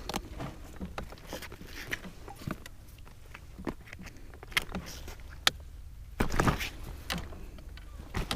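Scattered clicks and knocks of fishing gear being handled on a kayak, with a longer rustle a little over six seconds in, over a low steady rumble.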